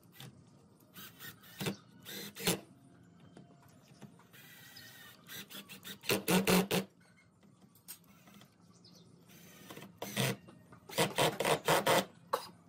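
Cordless impact driver driving screws into a wooden frame, running in several short bursts; the loudest come about six seconds in and near the end.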